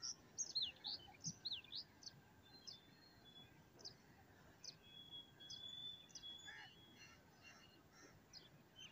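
Faint chirping of small birds: many short, quick calls, with one longer steady whistle about five seconds in.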